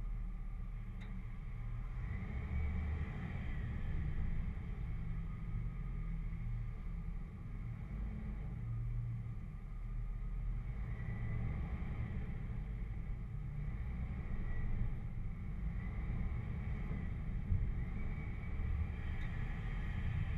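Jeep engine and drivetrain crawling along a dirt trail: a steady low rumble, with faint higher whining sounds coming and going.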